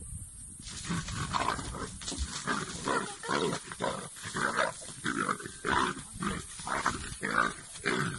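Two male leopards fighting at close quarters: a rapid series of harsh snarls and growls, about two a second, starting about half a second in.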